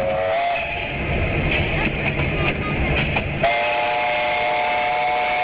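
Steam locomotive whistle: a short blast at the start, then a long steady blast of several notes at once from about three and a half seconds in, over the rumble of the rolling train.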